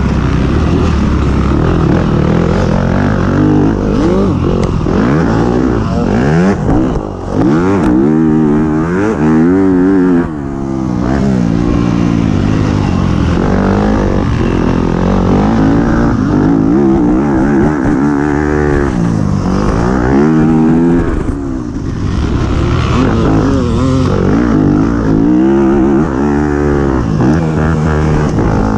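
A race vehicle's engine at full throttle, revving up through the gears again and again with the pitch climbing and then dropping at each shift. It briefly lifts off three times: about a quarter of the way in, a little later, and again about three quarters of the way in.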